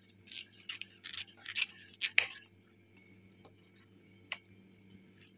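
Scissors snipping through the stiff edge of a banana leaf: a quick run of sharp cuts in the first two and a half seconds, the loudest just after two seconds, then a single click about four seconds in.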